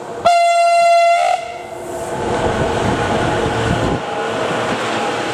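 A single steady horn blast about a second long just after the start, from a red DB electric locomotive, followed by the running noise of the locomotive and its intermodal freight train growing louder as it approaches and passes.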